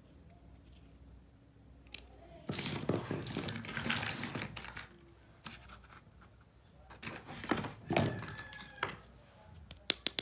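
Small objects being handled: rustling and crinkling in two stretches, with scattered sharp clicks and knocks, several of them close together near the end.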